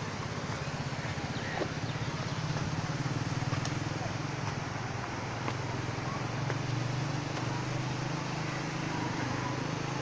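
A small engine running steadily, a low drone with a fast even pulse, under faint background voices.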